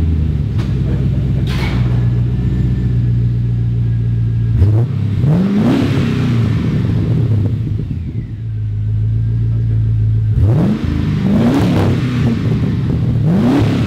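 Pontiac G8's engine idling through a newly installed Magnaflow exhaust, then revved up and back down a couple of times about five seconds in and three or four more times near the end.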